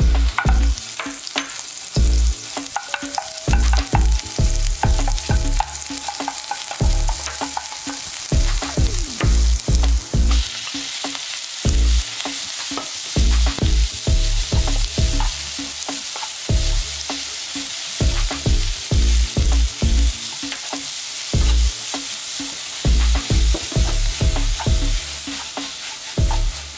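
Minced garlic and then kimchi frying in oil in a non-stick pan, with a steady sizzle that grows louder and fuller about ten seconds in. A wooden spatula stirs and scrapes through it, giving frequent irregular low knocks.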